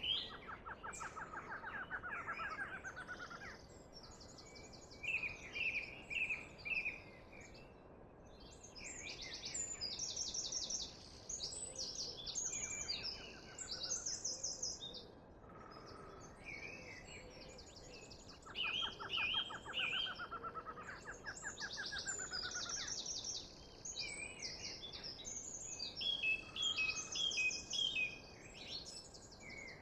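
Several songbirds singing in turn, with repeated rapid high trills and short chirps, and twice a longer, lower trill, over a faint steady hiss.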